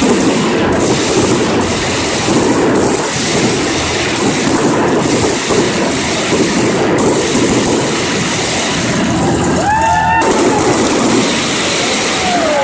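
Fireworks crackling and popping in a dense, continuous rattle of rapid small bangs, with no let-up.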